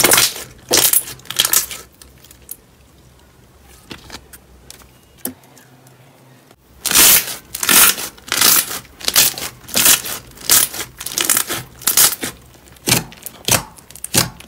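Clear slime being pressed and kneaded by hand: a few squishes at first, a quieter stretch of a few seconds, then a quick run of short squishes, about two a second.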